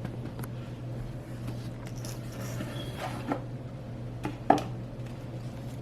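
Small cardboard box being handled and opened: soft rustling with a few light clicks and taps, the sharpest one about three quarters of the way in, over a steady low hum.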